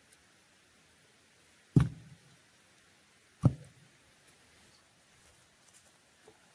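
Two heavy knocks, about a second and a half apart, each with a deep thud and a short tail.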